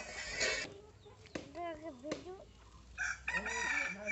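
Chickens clucking, with a series of bending, pitched calls that grow louder after the middle, after a short clatter at the start.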